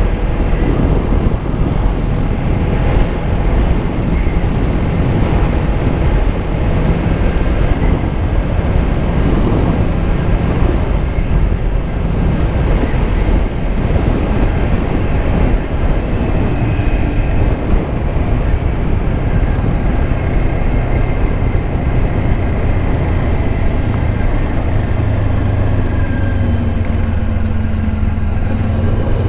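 Kawasaki Ninja 500's parallel-twin engine running at road speed under heavy wind and road rush on a helmet-mounted microphone. Near the end the engine note settles into a steady low tone.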